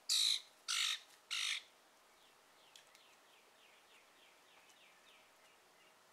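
A crow caws three times in quick succession, loud and harsh. Then a small bird gives a faint run of quick descending chirps, about three a second, for a few seconds.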